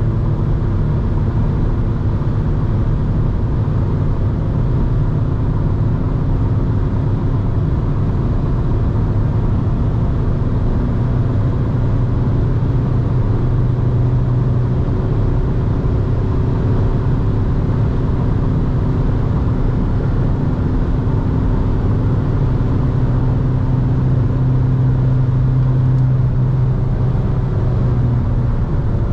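Volkswagen T5 Transporter's 1.9 TDI four-cylinder diesel (84 PS) running steadily at high autobahn speed, around 160 km/h near its top speed, heard from inside the cabin. Its steady engine drone blends with road and wind noise.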